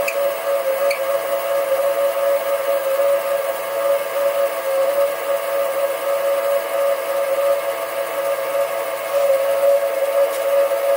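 Sieg SC3 mini-lathe running with its spindle turning, a steady whine from the motor and gearing; no cut is being taken. There are a couple of faint clicks about a second in.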